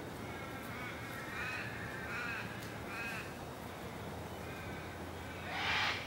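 A sulphur-crested cockatoo gives one loud, harsh screech near the end. Before it come four short, arching bird calls spaced about a second apart, over a steady low hum.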